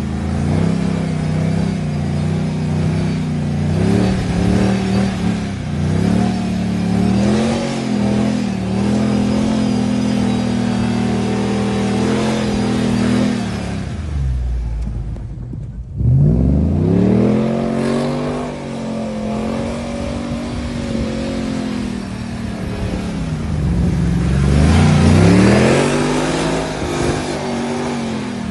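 Nissan Xterra's 4.0-litre V6 engine revving hard and unevenly under load, its pitch climbing and falling again and again as the throttle is worked. About fourteen seconds in, the revs fall away for a couple of seconds, then surge back up sharply.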